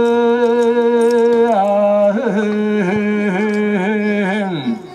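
A male olonkho storyteller singing unaccompanied in the Yakut epic style. He holds one long note with vibrato, glides to a second long note pulsed with small regular ornaments, and drops away in a falling glide near the end.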